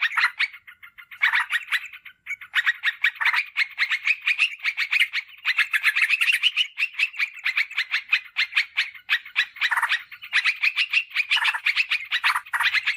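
Yellow-vented bulbul song: rapid, bubbly chattering phrases of quick short notes running almost without pause, broken briefly just after the start, around two seconds in, and again about ten seconds in.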